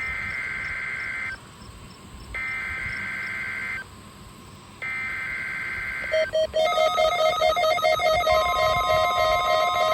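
NOAA Weather Radio SAME header: three identical bursts of two-tone digital data warble, each about 1.3 s long with about a second between them, marking the start of the weekly test. About six seconds in, a fast-pulsing electronic alert tone takes over, and a steady tone joins it about two seconds later.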